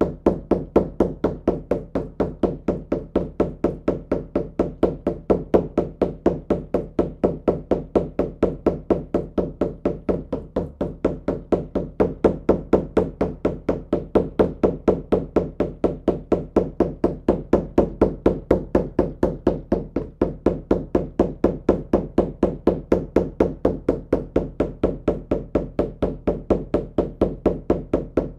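Shamanic hand drum beaten in a fast, steady, unbroken rhythm of even strikes, the repetitive drumbeat used to carry a listener into a shamanic journey trance.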